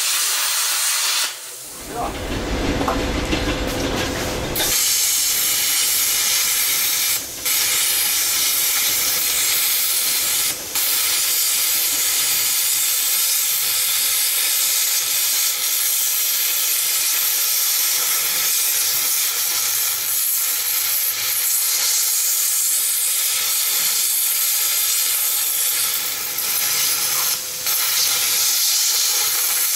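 Plasma cutter hissing steadily as its arc cuts through a car's suspension control arm to free the silent-block bushings. A few seconds in there is a deeper, rougher rush for about three seconds, and the hiss breaks off for an instant three times as the arc stops and restarts.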